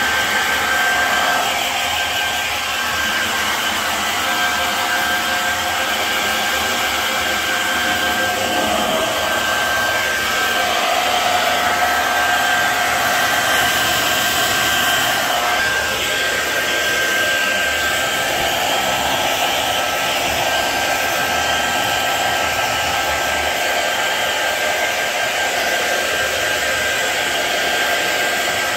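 Hand-held hair dryer running continuously, a steady whine over its rushing airflow, as it dries a freshly bathed small dog's coat.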